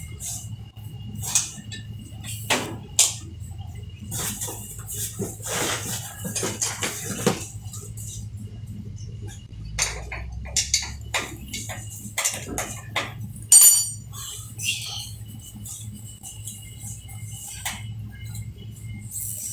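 Metal tools and parts knocking and clinking now and then during refrigeration repair work, with one sharp ringing metallic clink about two-thirds of the way through, over a steady low hum.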